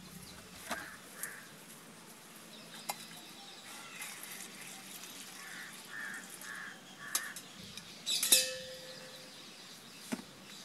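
Birds calling in the background, with a few short repeated notes. About eight seconds in comes a sharp metal clank with a brief ring, as a steel bowl is set down on a small metal stove.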